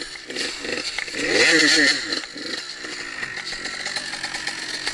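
Dirt bike engine revving in repeated short rises and falls while climbing a steep, leaf-covered slope. It is loudest about a second and a half in, then settles into steadier running.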